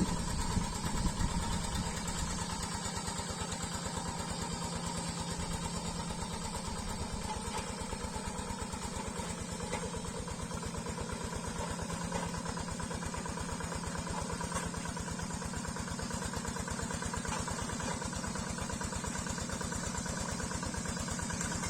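Quick G3000 Zeva hand tractor's single-cylinder Yanmar diesel engine running steadily, with an even, rapid chugging beat.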